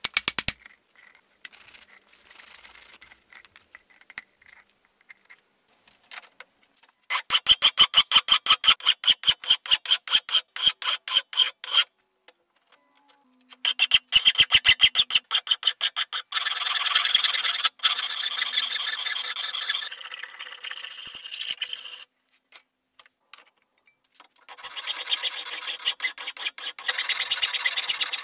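Hand file rasping across the steel of a forged tomahawk head held in a vise. Runs of fast, even strokes give way to longer continuous filing, with short pauses between. A couple of hammer blows on the hot head at the anvil open it.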